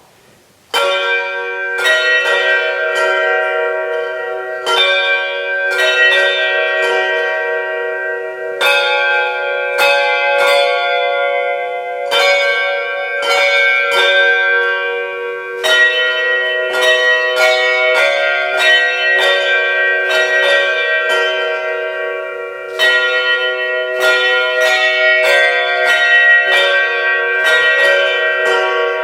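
A team of handbells playing a carol tune: a rapid run of struck notes, each ringing on and overlapping the next, starting about a second in.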